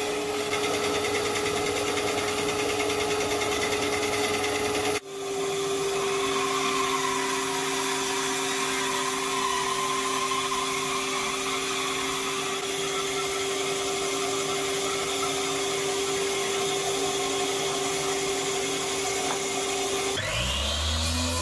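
Band saw running and cutting through rounds of log, a steady motor hum with the rasp of the blade in the wood. The sound briefly drops out about five seconds in, then the saw runs on.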